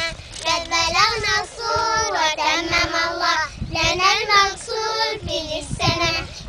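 Young girls singing a traditional Hijri New Year children's song together, in short phrases with brief breaks between them.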